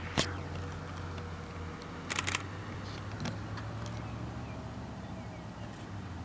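Steady low hum of an idling vehicle engine, with sharp camera shutter clicks: one just after the start and a quick run of three a little over two seconds in.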